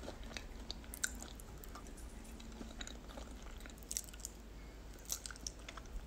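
A person chewing and biting food, faint wet mouth clicks scattered throughout, with a few louder ones about four and five seconds in.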